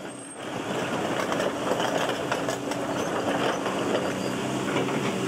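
Engine of construction machinery running steadily with a low hum, with scattered knocks and clatter.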